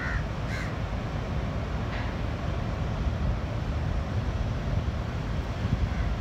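Crows cawing: a couple of caws right at the start, another about two seconds in, and a faint one near the end, over a steady low rumble.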